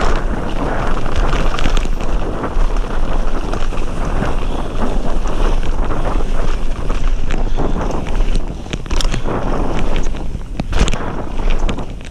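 Wind buffeting the camera microphone over the rumble of a mountain bike's tyres on a gravel trail at speed, with sharp knocks and rattles from the bike over bumps, a few louder ones in the second half.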